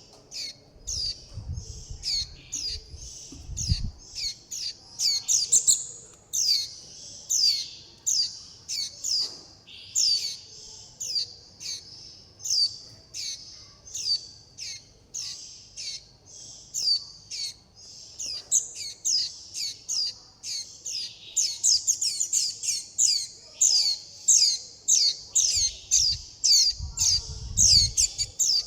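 Juvenile white-eye (vành khuyên) giving its begging and contact calls: a rapid, continuous series of short, high calls, each falling in pitch. A low rumble comes briefly near the start and again near the end.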